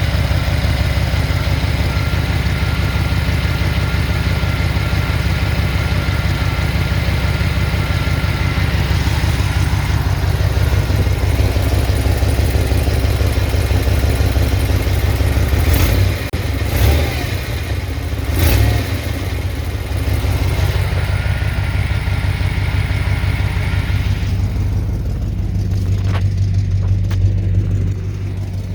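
1996 Impala SS's V8 running with an exhaust leak at a 2.25-inch exhaust gasket that would not seat on the bolt pattern, giving a steady, loud exhaust note. A couple of brief louder bumps come about two thirds of the way through.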